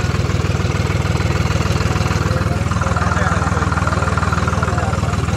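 Tractor diesel engine running steadily, a constant low, rapid throb heard up close from riders on the tractor.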